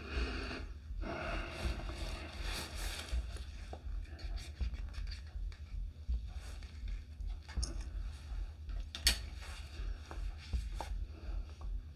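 Scraping and rustling from handling resin-mixing cups and stir sticks, with scattered small clicks and one sharp click about nine seconds in, over a low hum.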